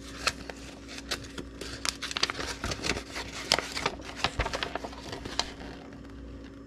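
A folded paper instruction leaflet being opened out and handled, a run of crisp rustles and crinkles that thin out near the end.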